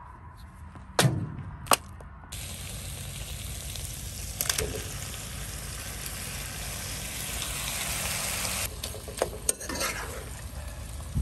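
Chopped onion and potato frying in a pan, sizzling steadily from about two seconds in, with canned vegetables poured in and stirred with a spatula. A couple of sharp knocks come before the sizzle, and a few scrapes of the spatula near the end.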